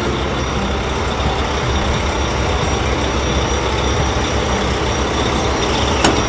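Heavy construction vehicle's engine running steadily, a cartoon sound effect, with a single sharp click about six seconds in.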